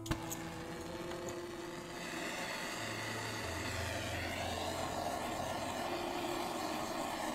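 Acetylene torch flame burning steadily as it melts pewter in a crucible, a constant rushing sound that grows a little louder over the first few seconds and then holds level. A sharp click comes right at the start.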